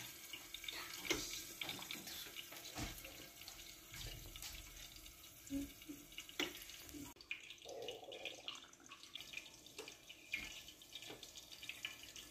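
Faint steady hiss of running water, with scattered light clicks and knocks.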